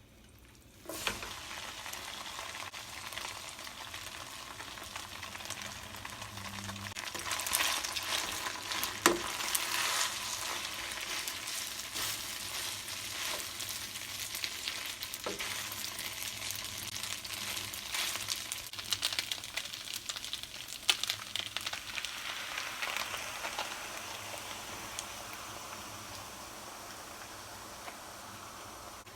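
Food sizzling in a hot pan, starting suddenly about a second in, with scattered clicks of a utensil stirring it; the sizzle slowly dies down toward the end.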